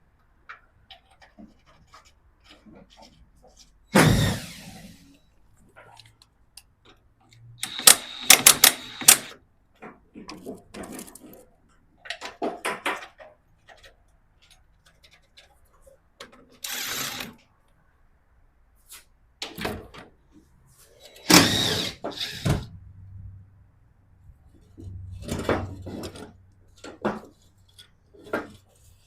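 Intermittent metal clanks and knocks of car parts and tools being handled during disassembly. The loudest is a heavy clunk about four seconds in, with quick clattering clusters later on.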